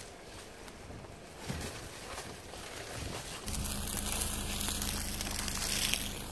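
Footsteps crunching through dry fallen leaves. About halfway through, a steady hiss with a low hum sets in suddenly.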